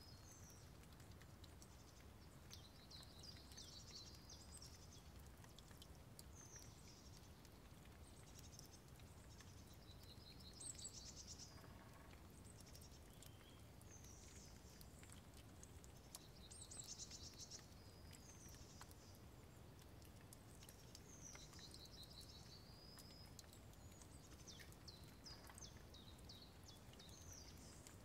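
Faint birdsong: short chirps and quick trills every few seconds, some sliding down in pitch, over a steady low outdoor rumble, with scattered faint ticks.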